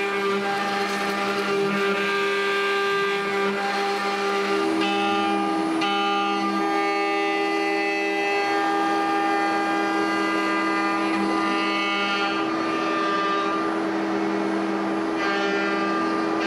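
Background instrumental music: sustained notes that change every second or two over a steady low drone.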